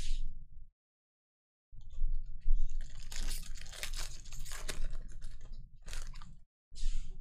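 Foil trading-card pack wrapper being torn open and crumpled: a brief rustle, then about five seconds of dense crackling and crinkling.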